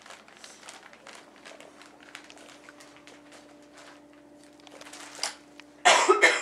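Crinkling and rustling of wrapping and packaging as a child rummages through a Christmas stocking, with scattered small clicks and a loud burst of noise near the end.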